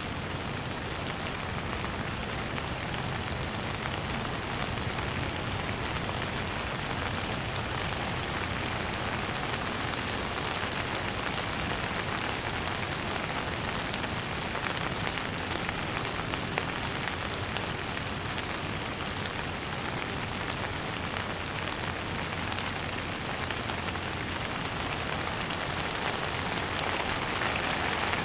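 Steady rain falling on a surface, a dense even patter of drops, getting a little heavier near the end.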